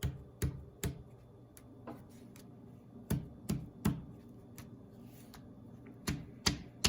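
Sharp taps in groups of three, about 0.4 s apart, with a new group about every three seconds, over a faint steady low hum.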